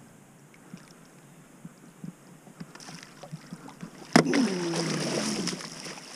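A musky thrashing and splashing at the surface as it is scooped into a landing net beside a boat. Small water sounds at first, then a sudden loud burst of splashing about four seconds in.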